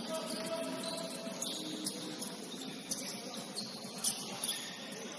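Basketball sneakers squeaking briefly on a gym floor, with a few sharp knocks over the steady noise of a sports hall.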